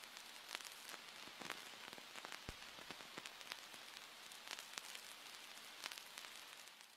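Faint steady hiss dotted with irregular clicks and crackles.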